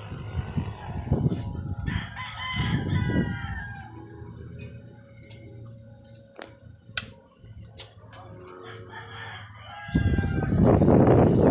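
A rooster crowing, with clicks and faint calls after it; near the end a loud rushing noise starts, like wind or handling on the microphone.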